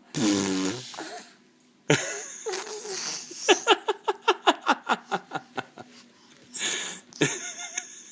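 A baby makes a short, funny voiced sound with his mouth, then an adult breaks into a long run of quick, repeated laughter.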